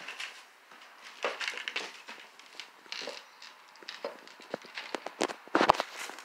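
Cat crunching dry kibble from a bowl: an irregular string of small crisp crunches and clicks, with a few louder knocks near the end.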